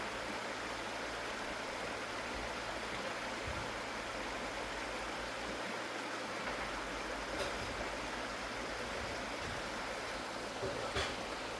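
Mountain stream rushing steadily over rocks, with a brief click near the end.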